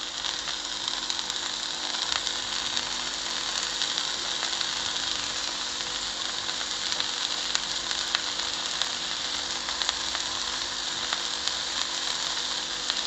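Egg mixture and oil sizzling steadily in the hot compartments of a paniyaram pan, a dense crackle of tiny pops.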